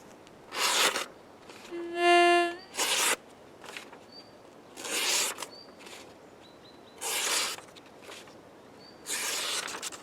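Cold Steel Recon 1 Tanto folding knife's blade being drawn through material in a sharpness test: five short rasping cutting strokes about two seconds apart. A brief steady pitched tone sounds about two seconds in, and faint high chirps come between the strokes.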